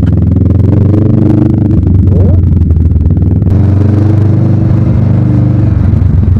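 Kawasaki Ninja 650's parallel-twin engine running under way and accelerating, with a quick rising rev about two seconds in.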